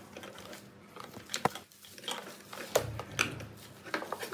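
Handling noise from power cables, a power adapter and a plastic bag being moved by hand: a few scattered light clicks and rustles.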